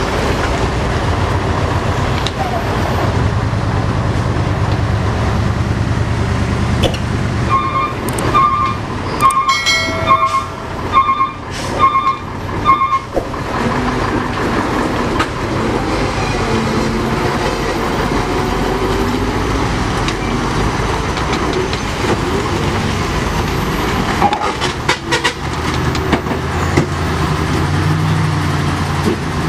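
Heavy dump trucks' diesel engines running under load as they pull through deep mud. About eight seconds in, a horn sounds a quick run of short, evenly repeated toots lasting around five seconds.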